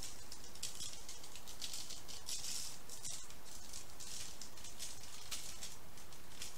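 Dry applewood rub seasoning rattling in a shaker, shaken in repeated bursts over burger patties.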